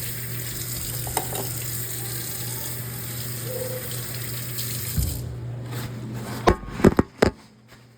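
A tap running water into a sink for about five seconds, then turned off, followed by a quick cluster of four sharp knocks.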